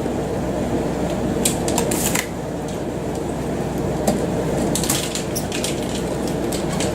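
A steady low machine hum, with scattered light clicks and clatter about a second and a half in and again around five seconds.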